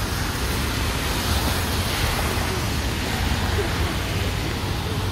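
Steady hiss of rain over a low rumble of wind buffeting the phone's microphone.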